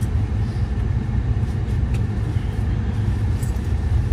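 Steady low rumble of wind buffeting the tent and the microphone, with a few faint clicks, like a fork on a plate.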